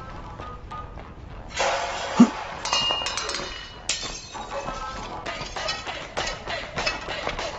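Kitchen clatter of dishes and cookware clinking, knocking and crashing over music, starting about a second and a half in, with one loud hit just after.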